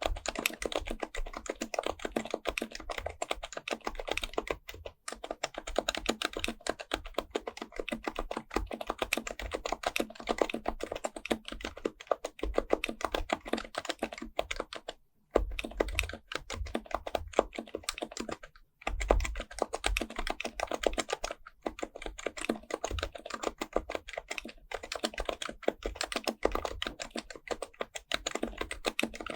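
HHKB Pro Type-S Topre keyboard, fitted with BKE-9400A parts, being typed on fast and continuously, with a few brief pauses and some deeper thuds among the key clicks.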